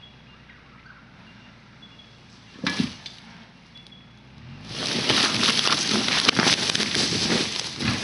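A felled hardwood log sliding downhill, scraping and crackling through leaf litter and undergrowth from about four and a half seconds in. A single sharp knock comes a couple of seconds before it starts to move.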